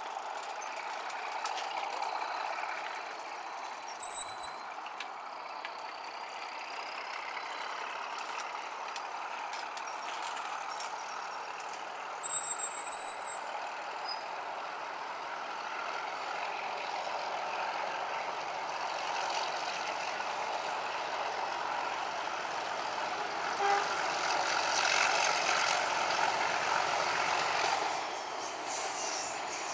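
A Class 31 diesel locomotive with its English Electric V12 engine running as it approaches hauling coaches, growing louder after about eighteen seconds. Two brief, loud, shrill sounds cut in about four and twelve seconds in.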